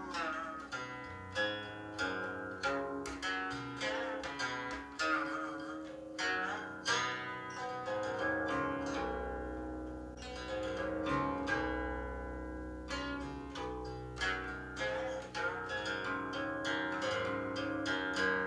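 Guqin played solo, picked up by a laptop's built-in microphone: quick plucked notes from both hands ring on, some bending in pitch. About halfway through the notes slow into a few held, ringing tones before the rapid plucking returns.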